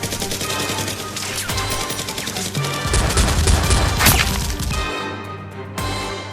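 Action background music with rapid bursts of dubbed gunfire sound effects, and one louder sharp hit about four seconds in.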